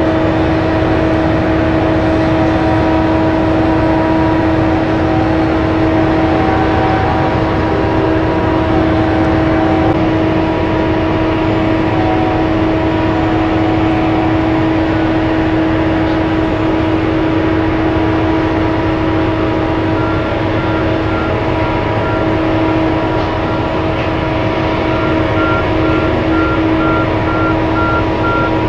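Engine and drive of a BelAZ-75710 ultra-class mining dump truck running steadily: a loud, constant hum of unchanging pitch over a rough rumble. A regular beeping joins in about two-thirds of the way through.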